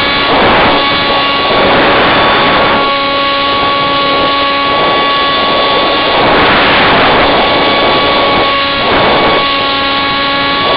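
Electric motor and propeller of a HobbyZone Firebird Scout RC plane running at a steady high whine, heard from on board the plane, with wind rushing over the microphone in several gusts as it banks.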